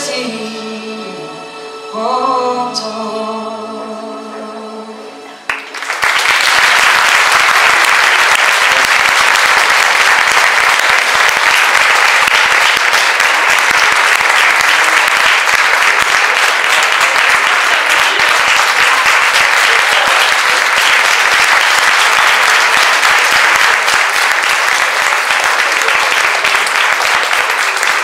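The last bars of a sung pop ballad over a backing track, ending about five seconds in; then an audience breaks into steady applause that goes on for over twenty seconds, easing slightly near the end.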